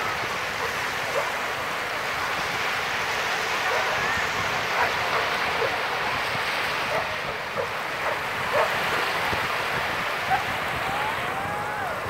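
Small waves breaking and washing up a sandy shore: a steady rushing surf. Brief high squeaky calls sound over it every second or so.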